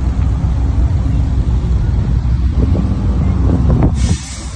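Deep exhaust rumble of performance car engines as the cars move off slowly in a line. About four seconds in the rumble drops away and a short rushing hiss takes over.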